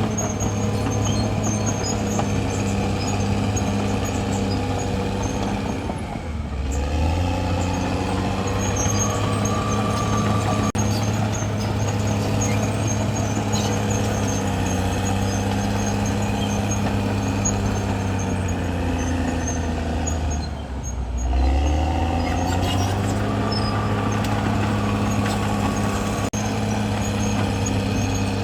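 Caterpillar D6R XL bulldozer's diesel engine working steadily under load; its revs dip twice, about six seconds in and again about twenty-one seconds in, and climb back each time. Faint high squeaking rides over the engine throughout.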